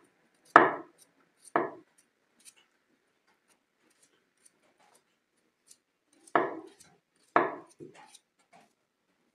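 Kitchen knife knocking against a wooden board while potatoes are peeled by hand: two knocks in the first two seconds, a stretch of only faint small clicks, then three more knocks a little after the middle, the last one lighter.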